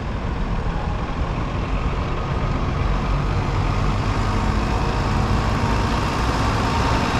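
Double-decker city bus engine running close by: a steady low rumble that grows slowly louder.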